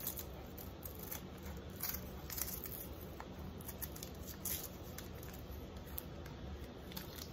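Small cardboard gift box being handled and opened by hand: faint, scattered rustles and light clicks of fingers working at the box and its lid.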